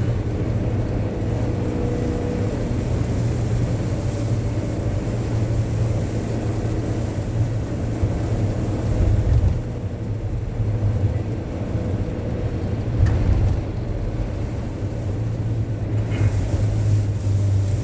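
Strong sandstorm wind buffeting the microphone: a steady low rumble that swells in gusts about nine and thirteen seconds in.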